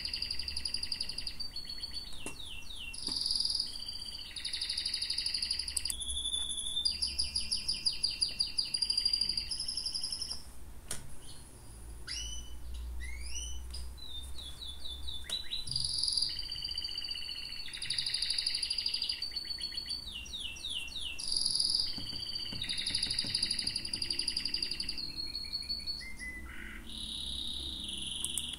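Songbirds singing continuously: high chirping phrases lasting a few seconds each, with rapid trills and quick rising and falling whistles.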